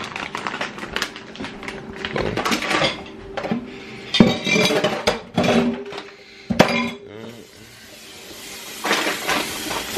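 Kitchen clatter as things are handled around an open freezer: irregular knocks, clinks and rustles, with two sharp knocks about four and six and a half seconds in. A steady hiss grows near the end.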